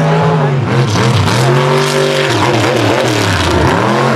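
Mega mud truck engine revving hard, its pitch rising and falling several times as the throttle is worked.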